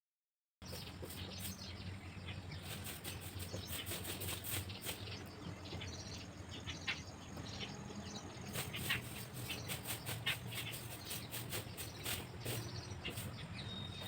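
Pencil scratching on paper in quick, irregular strokes, over a steady low hum, starting suddenly about half a second in.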